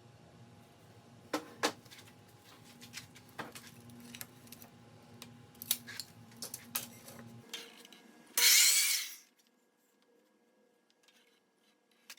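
Workshop handling of scrap pine and tools, with scattered wooden knocks and clicks, then a loud rush of noise lasting about a second, about eight seconds in, as the wood is worked.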